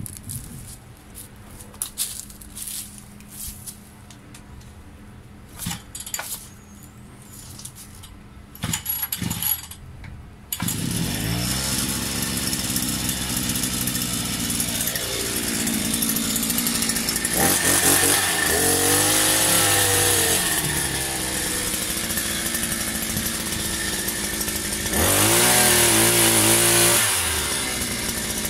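Small petrol engine of a multi-tool pole chainsaw starting suddenly about ten seconds in, after a few handling clicks. It then idles and revs up in a few surges, the loudest near the end.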